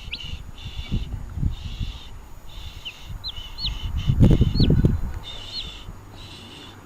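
Baby chick peeping in short high cheeps, repeated several times. A louder low rustle comes about four seconds in.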